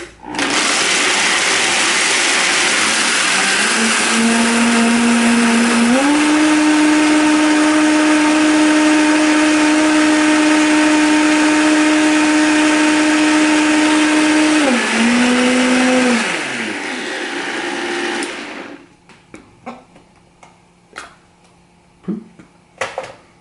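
Countertop blender crushing ice into a frozen margarita mix of limeade, beer and tequila. The motor's note steps up in pitch twice, then drops, and the blender winds down to a stop about three quarters of the way through, followed by a few light clicks.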